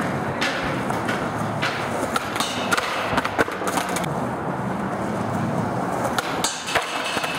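Skateboard wheels rolling over rough concrete with scattered clicks and knocks, then a sharp crack and scrape near the end as the board meets the ledge.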